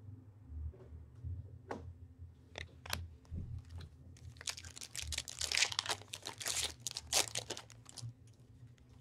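Trading card pack being torn open by hand, its foil wrapper crinkling, with a few light clicks and rustles of handling before it; the crinkling is densest for about three seconds in the middle.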